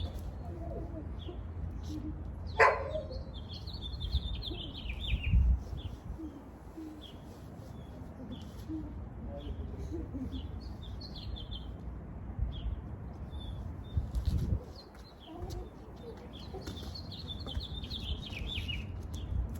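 Small birds chirping, with a quick falling run of chirps about three seconds in and again near the end, over a steady low rumble. A sharp knock comes about two and a half seconds in, and there are a couple of dull thumps.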